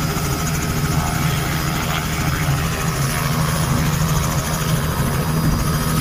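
Small helicopter running at ground idle on the pad: a steady low engine drone with a fast, even pulsing.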